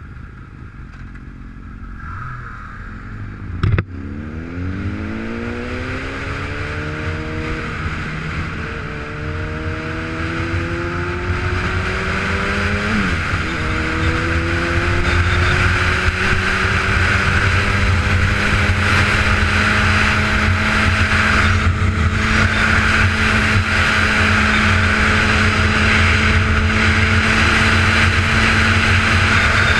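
A vehicle engine pulls away from a stop and accelerates up through the gears, its pitch rising in steps with a drop at each shift, then settles into a steady cruise. Wind noise grows louder with the speed. A sharp knock comes just before it moves off.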